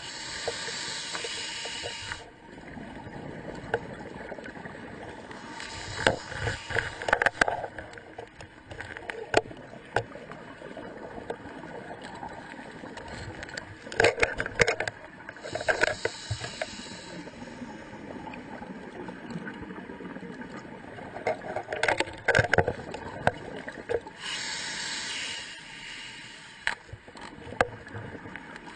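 Diver breathing underwater: a hiss with each breath in, about every eight to nine seconds, and a crackling, rumbling burst of bubbles with each breath out.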